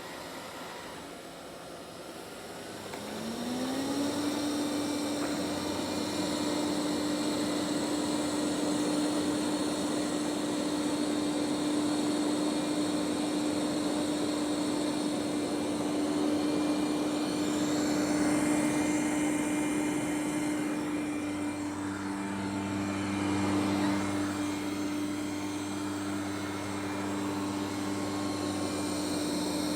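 Robot vacuum cleaner running. About three seconds in, its motor pitch rises and settles into a steady hum over a whirring hiss, and it gets louder. A second, lower hum joins in past the middle.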